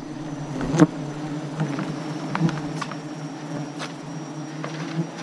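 Swarm of wild honeybees buzzing around their open comb with a steady, droning hum. A few short knocks and clicks of handling come through it, the sharpest about a second in.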